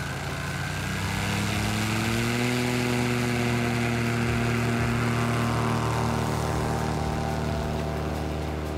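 Carbon Cub's piston engine and propeller at full power for a takeoff run. The engine note rises in pitch over the first couple of seconds, then holds steady and eases slightly near the end as the plane pulls away.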